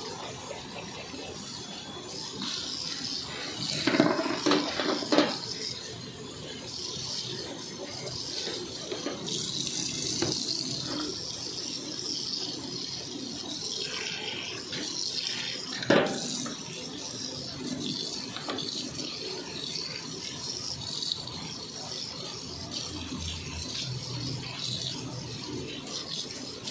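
Tap water running steadily and splashing over a plastic baby bottle and its parts as they are rinsed by hand in a stainless steel sink. A few sharp knocks come about four, five and sixteen seconds in.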